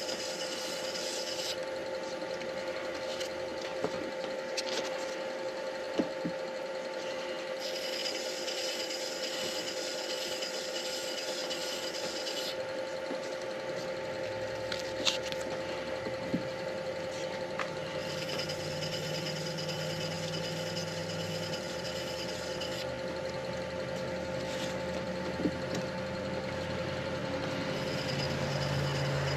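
Midi lathe motor running with a steady hum while micro-mesh abrasive pads rub the spinning driftwood and deer antler pen blank. The sanding hiss comes and goes in stretches of several seconds as the pad is pressed on and lifted, with a few light clicks.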